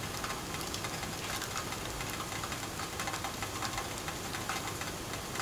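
Bamboo firewood burning in a camping stove: a steady rush with faint, irregular crackles.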